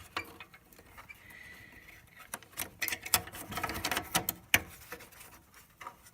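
Scattered small clicks and scrapes of hard plastic being handled, as a replacement headlight bulb is worked into its slot in the back of the headlight housing. A sharper click comes about four and a half seconds in.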